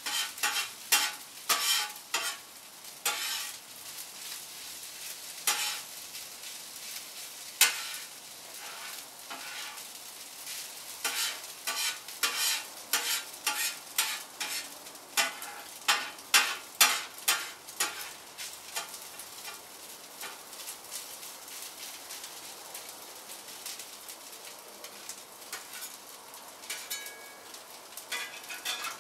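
Rice and garlic frying and sizzling in a pan while a utensil stirs and scrapes it. The strokes come quickly and irregularly for more than half the time, then grow sparser. The rice is being fried dry to cook the moisture out.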